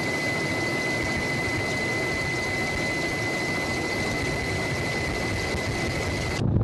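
Steady aircraft engine noise: an even hiss with a constant high-pitched whine running through it, cutting off suddenly near the end.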